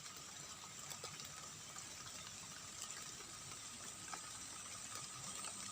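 Faint, steady hiss of light drizzling rain, with scattered soft ticks and a thin, high steady tone over it.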